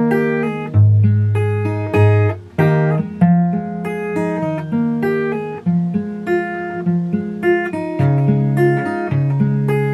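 Acoustic guitar with a capo, fingerpicked: a steady run of separately plucked notes, bass notes under the higher strings of each chord, letting the notes ring into one another.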